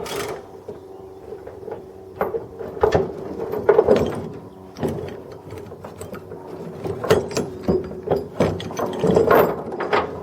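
Irregular mechanical clicking and clunking, someone handling equipment, over a steady hum.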